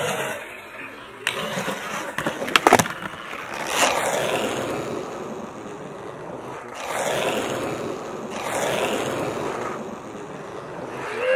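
Skateboard wheels rolling on a concrete skate bowl in several swelling rushes, with a few sharp clacks of the board about two and a half seconds in.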